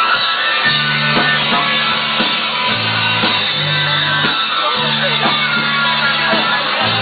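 Live rock band playing loudly: guitar and drums, with a low bass line that comes in under a second in and moves between held notes.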